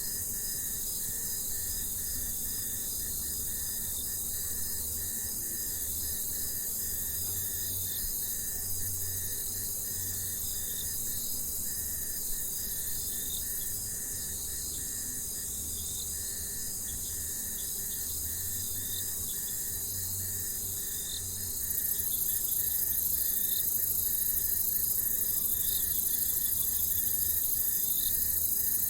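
Jungle ambience dominated by a dense, high-pitched insect chorus, with pulsing calls repeating at an even beat beneath it. It gets louder about three-quarters of the way through.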